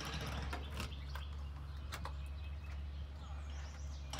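Outdoor background with a steady low rumble, a few light knocks and faint bird chirps.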